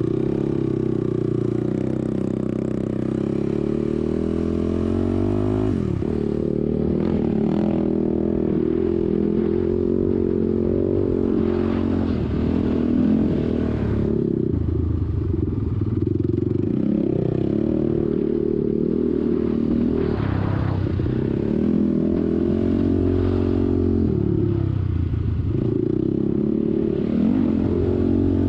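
ATV (quad) engine running while riding, its pitch repeatedly rising under throttle and dropping back as the throttle is eased off, about half a dozen times.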